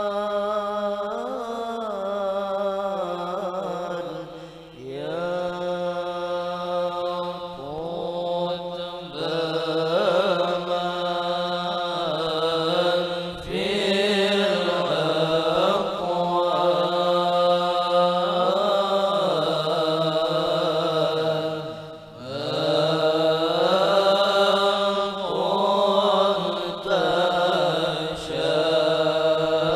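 A group of men chanting an Islamic devotional poem (syair) together in unison, in long melodic phrases with brief pauses between lines.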